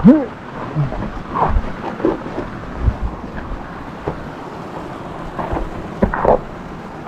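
Steady rush of a mountain waterfall, with low rumbling thumps of wind on the microphone. A short rising call sounds at the very start, and a few brief calls come later.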